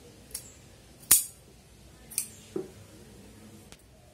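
Scissors cutting cloth: a few short sharp snips of the blades, the loudest about a second in, with a duller knock a little past the middle.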